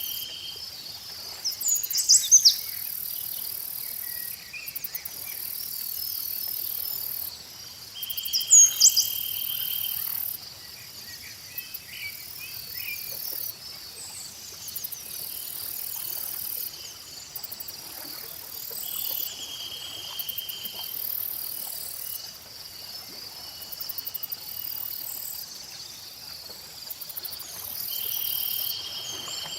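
Crickets and other insects trilling in a steady, high-pitched chorus that breaks off and resumes every few seconds, with a lower held trill coming and going over it. Short bird chirps come in twice, about two seconds and eight seconds in, and are the loudest sounds.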